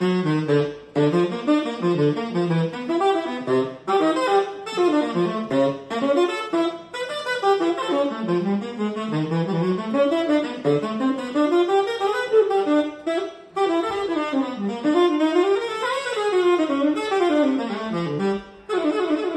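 Unaccompanied tenor saxophone playing fast jazz lines, quick runs of notes that climb and fall with short breaks between phrases. Just before the end it settles onto a steadier note.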